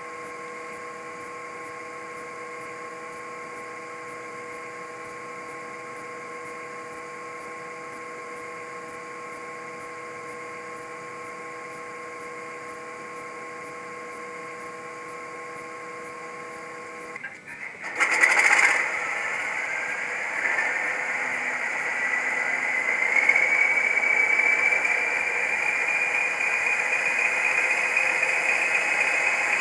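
Sound decoder of a model Class 20 diesel locomotive playing through its small speaker: a steady hum, then about two-thirds of the way in a loud start-up burst as the English Electric diesel fires, settling into the engine running with a turbocharger whine that climbs slowly in pitch.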